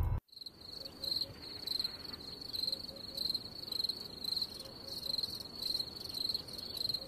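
A cricket chirping steadily, a high-pitched chirp repeated about three times a second.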